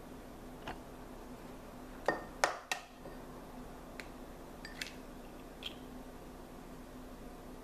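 An egg being cracked on the rim of a ceramic bowl: a few sharp taps about two seconds in. Then lighter clinks of the eggshell against the bowl as the yolk is separated from the white.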